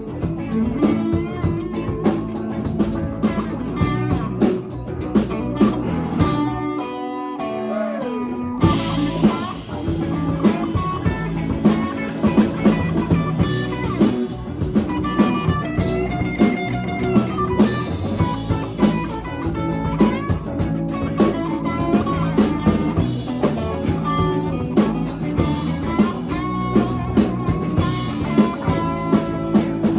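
Live band playing: guitar over a drum kit with a steady beat. About seven seconds in the drums drop out briefly while a guitar note bends down in pitch, then the full band comes back in.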